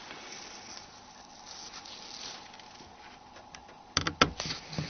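A Nokia N95 handset being handled as its slider is shifted open: a quiet hiss, then a quick cluster of sharp plastic clicks about four seconds in and one more click near the end.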